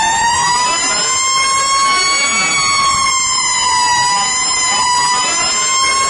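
Fire truck sirens sounding together: a Federal Q2B mechanical siren and a PA300 electronic siren. The result is a loud wavering wail, with other tones sweeping up and down across it.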